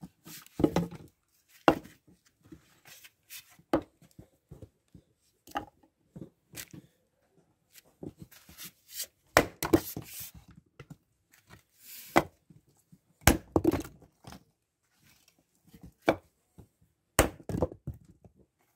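Split firewood pieces knocking and clattering as they are picked up and tossed aside: a series of irregular wooden knocks with quiet gaps between, the loudest in the second half.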